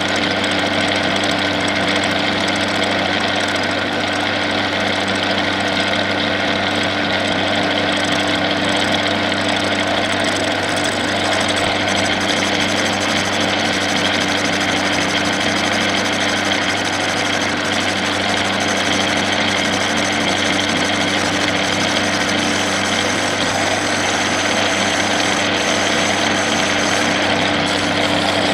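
Bernardo P 600 G metal lathe running steadily under power, its motor and gearbox giving an even hum with several steady tones, while a boring bar takes the final pass inside an aluminium piston.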